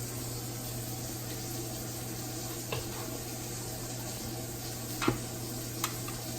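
Kitchen cooking noise: a steady hiss over a low hum, with three light clicks or knocks in the second half, the second one the loudest.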